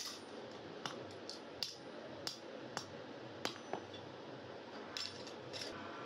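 Light metallic taps and clinks, about ten at irregular intervals, as a steel door bolt is tapped with a hammer on a steel anvil block and handled, over a steady low background noise.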